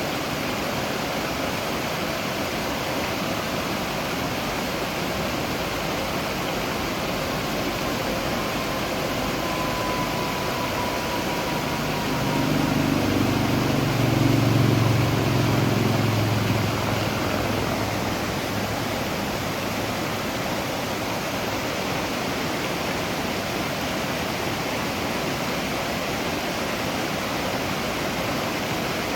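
Waterfall rushing steadily. Around the middle, a low rumble swells over the water for about five seconds and fades away.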